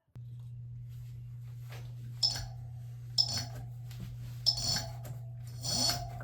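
A 1500 W e-bike motor switches on and spins the wheel with a steady low hum. Over it, a short scraping squeak comes about once a second as the wheel turns, which the builder puts down to the old tire.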